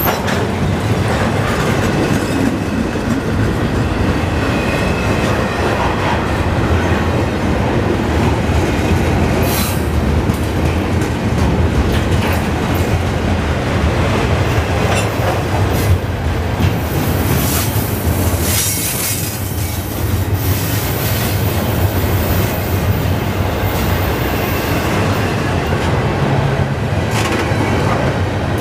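Double-stack container freight cars rolling past close by: a steady rumble of steel wheels on rail, with sharp clacks as the wheels pass over the rail joints and, at times, a brief wheel squeal.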